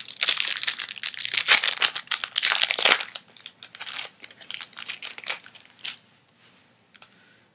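Foil wrapper of a 2007 Bowman Chrome baseball card pack being torn open and crinkled, loudest in the first three seconds, then lighter crackles until about six seconds in.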